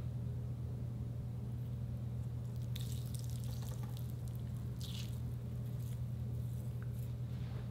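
Crushed giant water-bead (Orbeez) gel squished and crumbled by hand, giving wet crackling squelches in a few bursts: around three seconds in, near five seconds, and again about six to seven seconds in. A steady low hum runs underneath.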